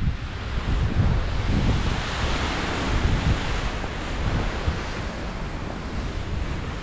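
Strong wind rushing over the exposed ridge and buffeting the microphone with a deep rumble, swelling into a louder hissing gust about two to three seconds in.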